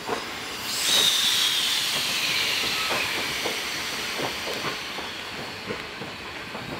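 A sudden loud hiss of compressed air venting from the departing passenger train, with a whistling tone that slowly falls in pitch as the hiss fades over several seconds. Scattered light clicks and knocks from the slowly rolling coach run underneath.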